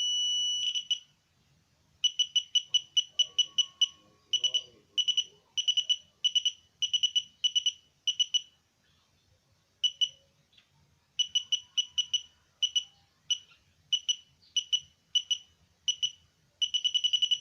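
Simple metal detector's beeper sounding a high tone: held steady at first, then a run of short beeps about four a second that stops and restarts, and a steady tone again near the end, the detector signalling metal under its coil.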